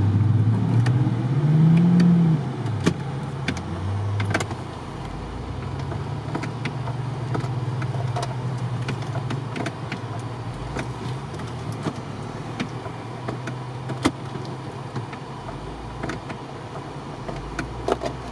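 Off-road 4x4's engine running under load, rising briefly in revs about two seconds in and then holding fairly steady, with scattered sharp knocks and clicks.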